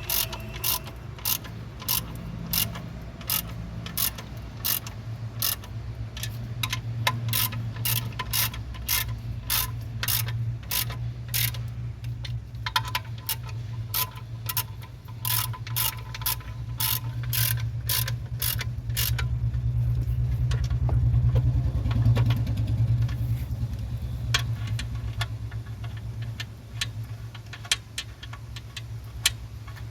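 Hand ratchet wrench clicking in a steady run of about two clicks a second, thinning to occasional clicks after about 19 seconds, over a steady low hum.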